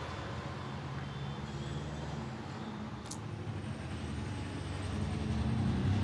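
Roadside traffic: vehicle engines running, the hum growing louder near the end. One sharp click about three seconds in.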